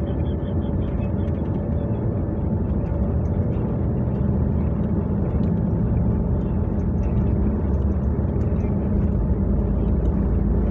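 Airliner cabin noise while rolling fast along a wet runway: a steady low rumble of engines and wheels, growing slightly louder.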